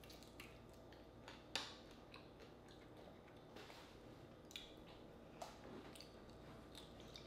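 Faint eating sounds: soft mouth smacks and clicks from chewing fried frog legs, with one sharper click about a second and a half in, over a low room hum.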